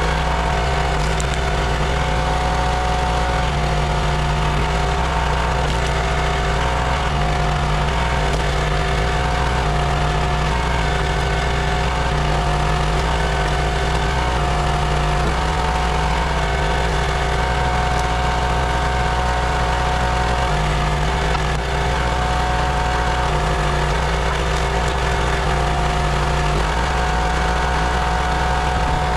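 Small gasoline engine of a hydraulic log splitter running steadily as the ram works a log through the splitting wedge, with small shifts in the engine note along the way.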